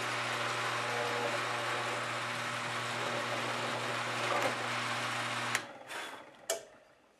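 Drill press running steadily as it drills a pin hole through a bois d'arc (Osage orange) wood handle scale. About five and a half seconds in the motor is switched off and winds down, with a few sharp clicks before it falls quiet.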